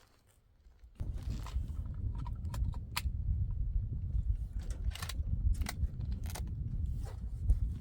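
Footsteps crunching on dry ground, starting about a second in, over a steady low rumble on the microphone.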